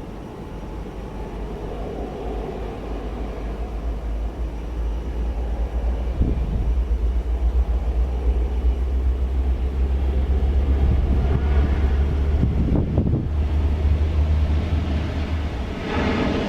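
Jet airliner's engines rumbling as it passes the airport, growing louder over several seconds and easing off near the end.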